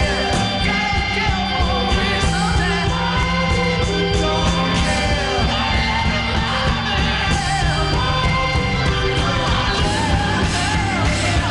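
Rock music with a singer's voice over a band, loud and unbroken.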